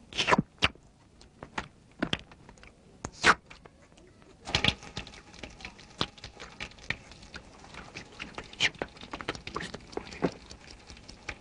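Animation sound effects of light clicking and tapping. A few sharp, separate clicks come in the first few seconds, and from about four seconds in there is a dense, uneven run of small taps and patters.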